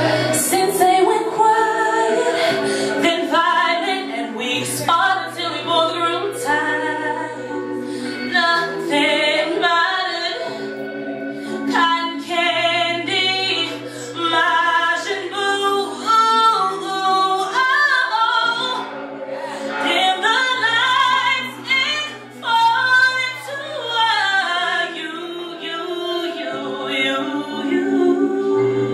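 A woman singing live into a handheld microphone, with wavering, ornamented runs, over sustained backing chords that change every few seconds.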